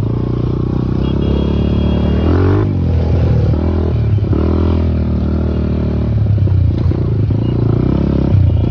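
Small motorcycle engine running close by under load on loose sand, its pitch rising and falling several times as the throttle is worked.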